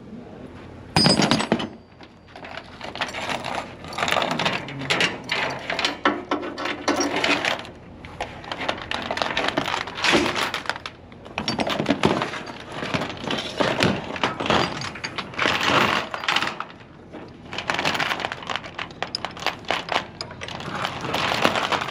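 Continuous irregular clattering and clanking of hard objects, with a loud bang about a second in.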